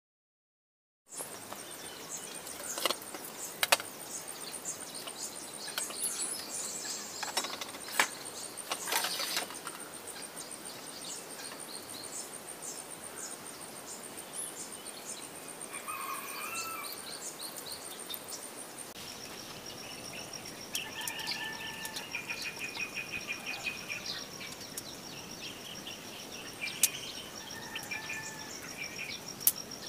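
Outdoor background of birds chirping and an insect's steady, high, rapid trill, which drops to a lower-pitched trill a little past halfway, with a few sharp clicks or knocks scattered through. It starts after a second of silence.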